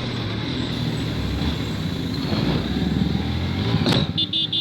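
Motorcycle engine running while being ridden, with wind noise on the microphone. A short sharp burst comes near the end, followed by a few quick high-pitched beeps.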